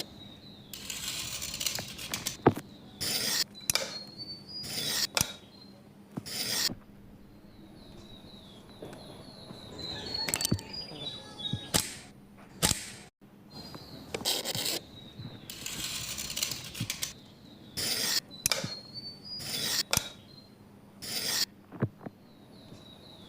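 Repeated short scraping strokes of a hand tool on bamboo, coming in irregular bursts, with small birds chirping in the background.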